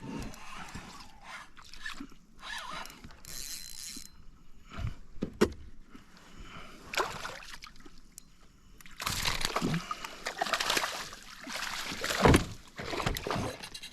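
River water sloshing and splashing in irregular bursts, louder in the second half.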